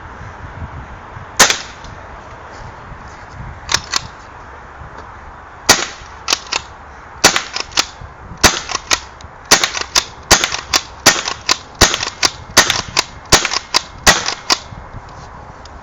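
APS RAM pump-action paintball shotgun firing a magazine of paintballs, a string of sharp pops. They start out a couple of seconds apart, then quicken to about one or two a second, many followed closely by a quieter click.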